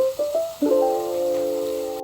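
Background music: three quick notes rising in pitch, then a held chord.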